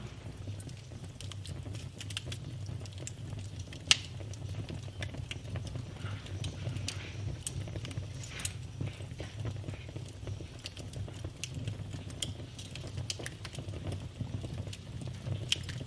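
Campfire crackling: a steady run of small sharp snaps and pops, with two much louder pops about four and seven and a half seconds in, over a steady low rumble.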